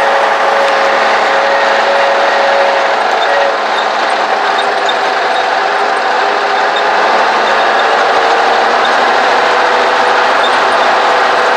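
Case 1030 tractor's six-cylinder diesel engine running steadily while driving, heard from inside the cab as a loud, even drone with a steady whine over it.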